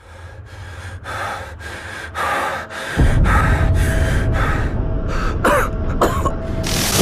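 A person breathing fast and heavily, about two breaths a second, growing louder, with a couple of voiced gasps near the end. A low rumbling drone comes in underneath about three seconds in.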